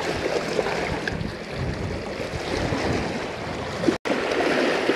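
Small sea waves washing and splashing against shoreline rocks, with wind buffeting the microphone. The sound cuts out for an instant about four seconds in.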